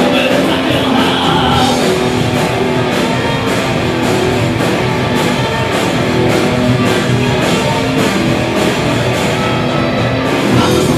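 Live rock band playing: electric guitars and a drum kit with steady cymbal hits, loud and continuous.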